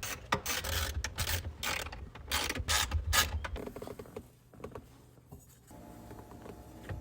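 Ratchet wrench clicking in quick uneven bursts for about three and a half seconds as interior bolts are worked loose, then a faint steady hum.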